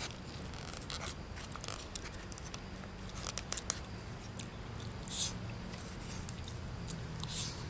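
A person chewing and eating fish, with soft mouth sounds and small clicks of chopsticks and a plastic spoon against a foam food box, and a few short hissing sounds.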